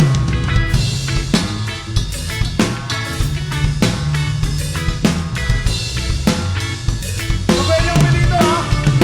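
Reggae band playing an instrumental passage: a drum kit with rimshots, snare and bass drum keeps a steady beat over a bass line, and a melodic instrument line comes in near the end.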